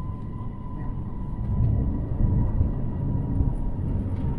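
Airbus A350-900 landing rollout heard from inside the cabin: a steady low rumble of the wheels and airframe on the runway, with a faint steady high whine.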